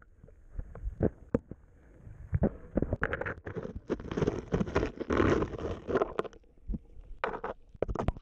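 Muffled water sloshing with irregular knocks and clicks, heard through an action camera held underwater in shallow water, the sound dull and boomy from the submerged housing.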